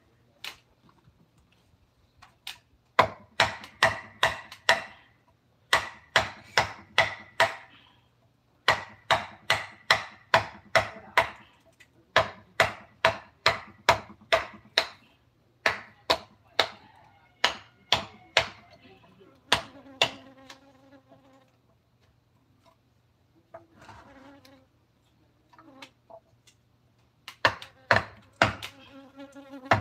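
Wood carving: a mallet striking a chisel into wood in quick runs of sharp taps, about three to four a second, stopping and starting every few seconds.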